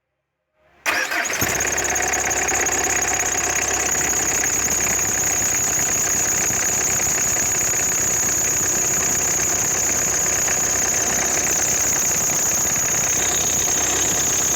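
Citroen Berlingo 1.9 DW8 diesel engine running with a steady high-pitched whistle from the accessory drive belt (alternator and power-steering belt) and its tensioner pulley. The sound starts abruptly about a second in and holds steady.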